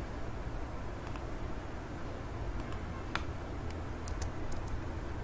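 Faint clicks and taps of a computer mouse and keyboard, a few scattered and then several close together over the second half, over a steady low hum of background noise.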